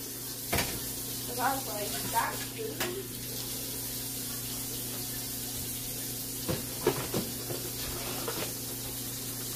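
Kitchen faucet running a thin, steady stream into a stainless steel sink, with a few light clinks of dishes being handled.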